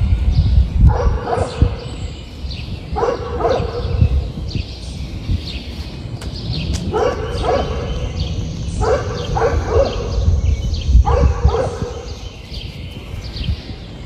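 A dog barking in short runs of two or three quick barks, five runs about two seconds apart.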